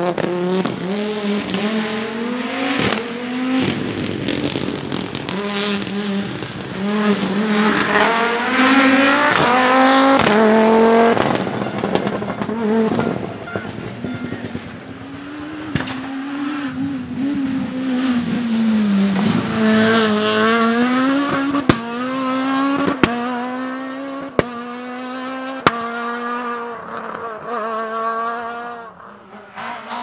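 Rally car engines at full throttle, the pitch climbing and dropping back with each gearshift. The first car is a Group B Audi Sport quattro E2 with a turbocharged five-cylinder. In the second half there are four sharp cracks over about four seconds.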